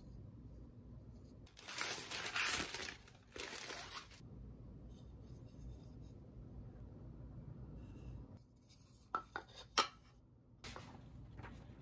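Tissue wrapping paper rustling and crinkling for about two seconds, then, near the end, a few light knocks as two wooden mahogany bowls are nested together.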